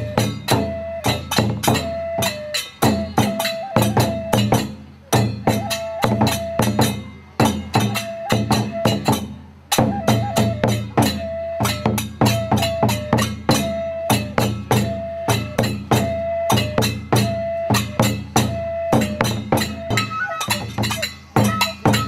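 Kagura music: a large taiko drum beaten in a quick, steady rhythm, with a bamboo flute repeating a short held note about once a second.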